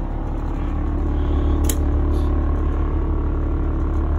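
Steady low mechanical hum from the motorhome's running machinery, with a single faint click about one and a half seconds in.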